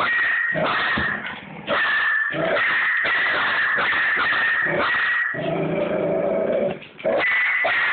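A pug growling, yapping and whimpering in near-continuous agitated bursts at a bird, with two brief pauses.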